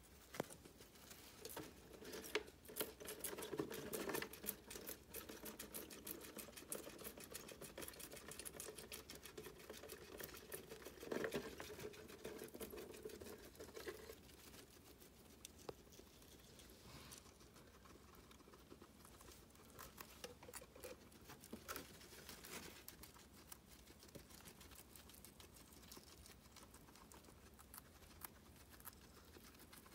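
Guinea pigs chewing parsley stems and shuffling on a disposable pad and against a cardboard box: faint, rapid crunching and rustling, busiest in the first half, with a couple of louder scuffles early on and again about a third of the way through.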